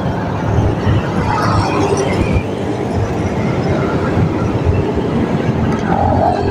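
Folding bicycle rattling over a rough dirt and rubble road shoulder: a steady, clattering rumble.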